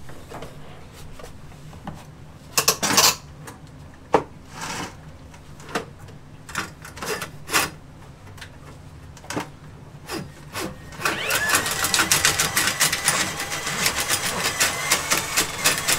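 Milwaukee M12 quarter-inch cordless drain snake: scattered knocks and clatters as it is handled and its cable fed into the laundry sink drain, then about eleven seconds in its motor starts and the spinning drum and cable rattle rapidly and steadily.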